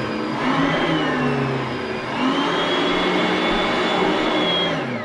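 Oreck vacuum cleaner motor running with a loud whine; the pitch dips about a second and a half in, rises again, and starts falling near the end as the motor winds down.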